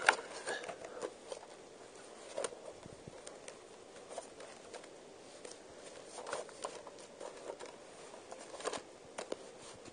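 Quiet handling of a DVD set as it is taken out of its packaging: faint rustling with a few light taps and clicks scattered through.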